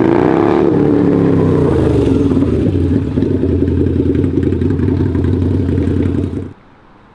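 Loud cruiser motorcycle engine slowing as the bike rolls to a stop, then idling with a fast, even pulse, and cutting out suddenly as it is switched off near the end.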